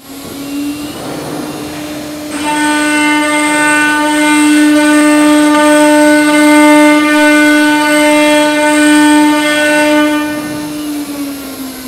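Spindle of an automatic-tool-change CNC router whining steadily at one high-speed pitch. About two seconds in, the whine gains overtones and grows louder as the bit engraves the MDF, and near the end the pitch begins to fall as the spindle slows.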